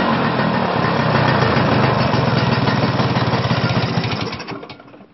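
Vespa scooter engine running with a fast, even beat of firing pulses, dying away near the end.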